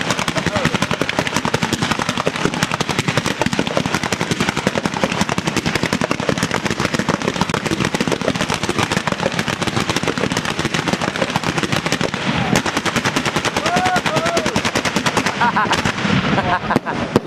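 Fireworks firing in a dense, continuous rapid barrage of sharp bangs, many each second like a machine gun. The barrage thins briefly near the end.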